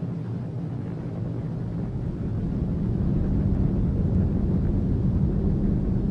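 Deep, steady rumble of a nuclear test explosion, growing louder a couple of seconds in.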